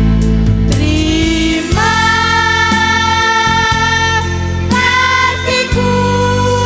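Student choir singing long held notes over an instrumental accompaniment with a steady bass; one note is held from about two seconds in and a new one begins near the five-second mark.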